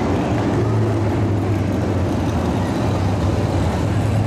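Race car engines running at a dirt oval: a loud, steady low drone with a rough, noisy wash over it.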